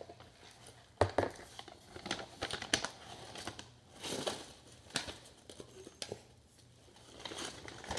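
Brown paper McDonald's takeout bag being handled and opened, the paper crinkling and rustling in irregular bursts, with the sharpest crackles about a second in and around the middle.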